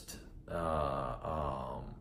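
A man's drawn-out voiced hesitation sound, a groan-like 'uhh' held for about a second and a half while he searches for the next word.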